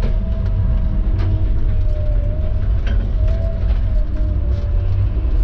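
Tigercat knuckleboom log loader's diesel engine running steadily under load, heard from inside the cab, with a hydraulic whine that wavers in pitch as the boom and grapple swing a log. A few sharp clicks or knocks come through over it.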